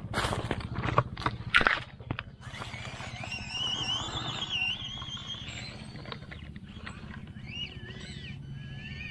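Small RC crawler truck's electric motor and gears humming steadily as it crawls over dry leaves and twigs, with several sharp cracks and clicks in the first two seconds.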